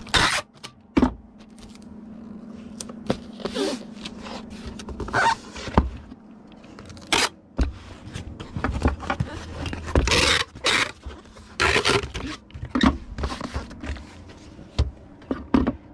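Packing materials being handled while a shipping package is put together: irregular rustling and rubbing noises with scattered short knocks and clicks.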